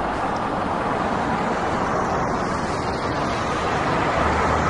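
A motor vehicle driving: a steady rushing noise that slowly grows louder, with a low steady hum joining near the end.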